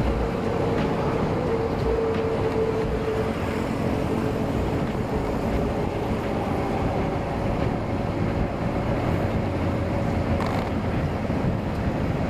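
Motorbike riding at a steady cruising speed: engine running under a constant rush of wind and road noise, with a faint steady hum in the first few seconds.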